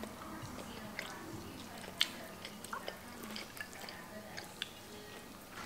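Quiet eating sounds: chewing, with small scattered clicks and taps of food and fingers against plates and one sharper click about two seconds in.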